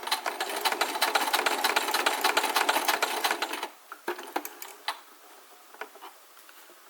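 Domestic sewing machine stitching at speed, a rapid even clatter of stitches for about three and a half seconds before it stops. A few single clicks follow as the machine and fabric are handled.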